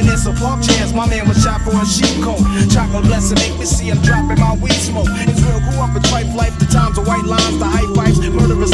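Hip-hop track with rapped vocals over a heavy bass line and a steady beat, played loud over a PA for a dance routine.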